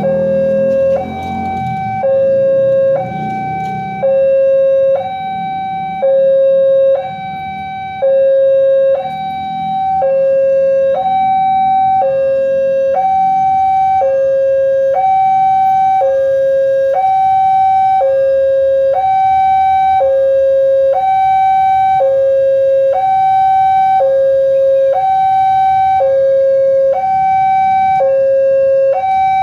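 Railway level-crossing warning alarm sounding a two-tone electronic signal, alternating evenly between a high and a low tone about once a second, warning that a train is approaching. A low rumble sits beneath it in the first few seconds.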